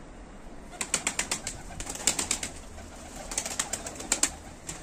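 Young domestic pigeons' wings clattering as they take off from the parapet: two quick flurries of sharp wing claps, the first about a second in and the second past the three-second mark.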